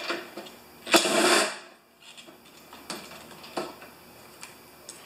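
Cordless drill/driver with a socket running in a short burst of about half a second, about a second in, turning a 5/16 bolt, followed by a few light clicks and knocks of tools being handled.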